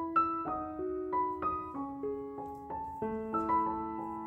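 Background piano music: a melody of struck notes at about three a second, each ringing on until the next.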